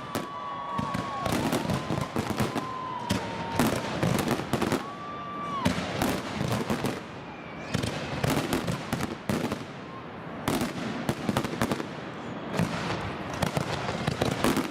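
Fireworks display: a dense run of bangs and crackles one after another, with a few drawn-out whistles in the first half.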